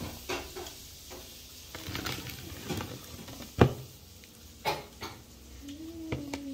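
Sounds of someone eating with her fingers from plastic plates: soft handling and chewing noises broken by several sharp knocks of the plates on the table, the loudest about halfway through. A short low hum of a voice comes near the end.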